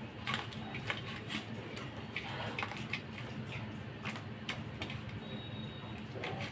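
A hand squeezing and mixing chicken into wet cornflour batter in a stainless steel bowl: irregular squelches and light clicks against the metal, over a steady low hum.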